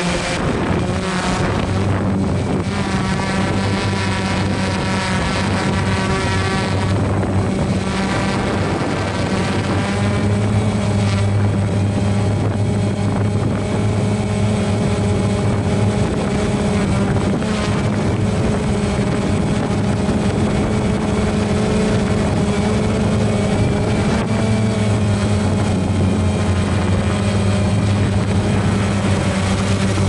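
Steady whirring hum of a camera drone's propellers, with higher tones that waver in pitch during the first several seconds.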